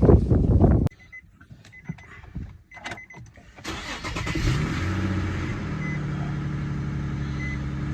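Car engine cranked and started about three and a half seconds in, revving up briefly and then settling to a steady idle, just after an oil change. Short dashboard warning beeps sound before and after the start, and a loud rustling noise cuts off abruptly about a second in.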